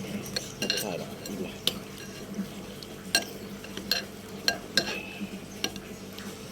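Cutlery clinking and scraping against a bowl while eating noodle soup: about a dozen light, irregular clinks.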